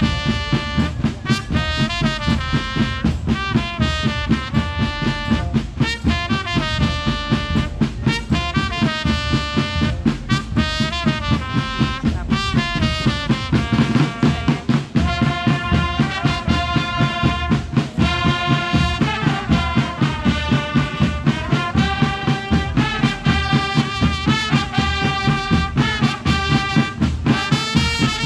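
Brass marching band with drums playing a lively tune in unison: trumpets and trombones carry the melody over a steady beat.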